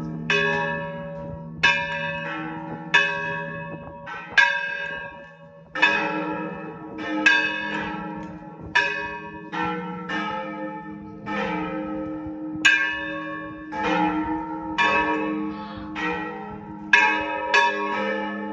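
A church bell swung full circle on its wooden headstock, its clapper striking somewhat more than once a second. Each stroke leaves a long ringing hum. A deeper ringing tone thickens the sound about six seconds in.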